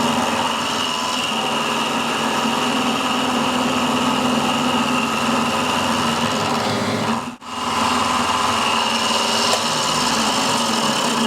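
Milling machine running, its old milling cutter cutting along the edge of a 1/2 inch steel plate: a steady whine with a hissing cutting noise, briefly cut off about seven seconds in.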